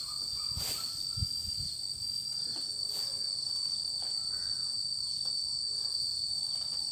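Steady, high-pitched drone of insects in two even tones, with a couple of soft low thumps about a second in.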